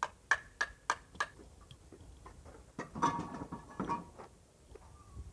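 Sharp, evenly spaced ticking clicks, about three a second, that stop about a second in, followed by a short rough, scraping-like noise around the middle.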